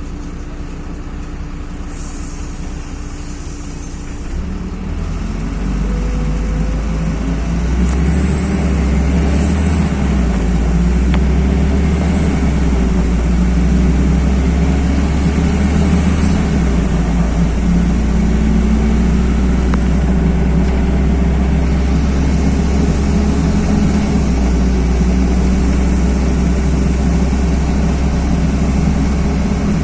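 LiAZ-5292 low-floor city bus running, heard from inside the passenger cabin: the engine and drivetrain rumble grows louder about five seconds in as the bus works harder, then runs steadily.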